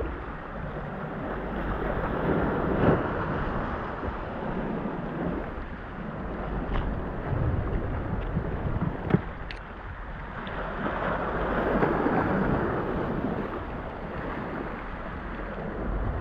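Sea waves surging and washing against the rocks of a jetty, swelling twice, with wind buffeting the microphone. Two sharp knocks, about three and nine seconds in.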